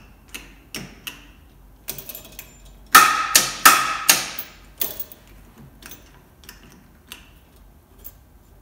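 Light switch clicks, then the magnetic contactor of a neon bombarder control circuit pulling in with a few loud metallic clangs, each ringing briefly, about three to four seconds in. Lighter clicks follow as the stages are switched off again.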